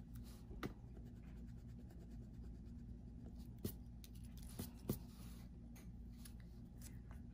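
Faint scratching of a pencil's eraser rubbing on paper, with a few light clicks and taps in the middle as the pencil is handled and turned over.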